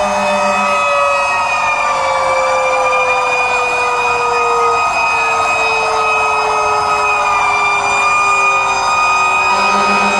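Several fire truck sirens sounding together in a steady wail, one slowly falling in pitch.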